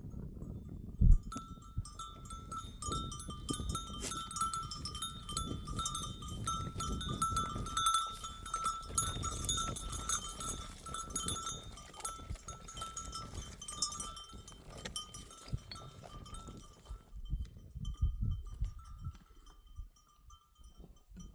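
Many livestock bells on a grazing flock of goats and sheep jingling and ringing together, fading after about 17 seconds. A single low thump about a second in.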